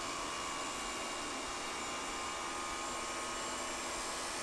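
Contractor table saw running with a dado blade while a slot is cut slowly: a steady whir and hiss at an even level.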